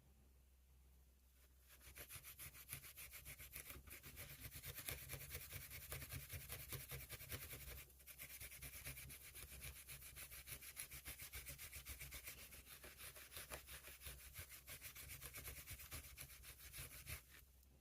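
Fine emery cloth rubbed by hand over the steel of a pocket knife, in faint quick back-and-forth strokes. The rubbing starts about a second and a half in, breaks off briefly around the middle, and stops just before the end.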